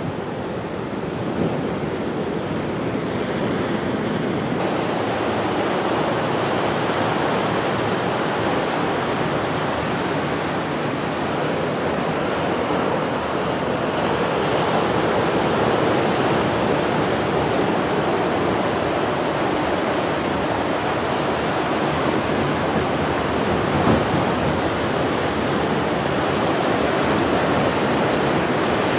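Ocean surf after a storm: waves breaking in a continuous, steady wash of noise.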